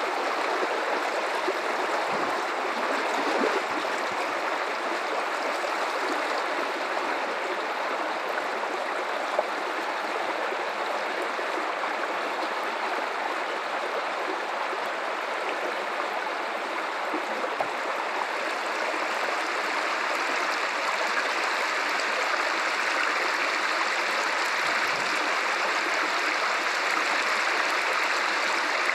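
River water running steadily over rocks, a continuous rushing flow with faint splashes and gurgles.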